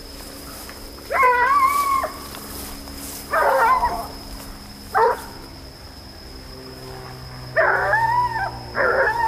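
Hunting dogs baying in long, drawn-out calls, five times, while running a wild boar through tall grass.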